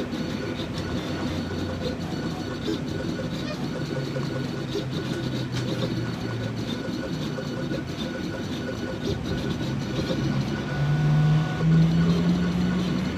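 Jinka vinyl cutting plotter running a cut: the stepper motors whir and buzz as the cutter carriage and the vinyl move back and forth. The hum changes pitch with each move and rises to a louder, higher whine for the last couple of seconds.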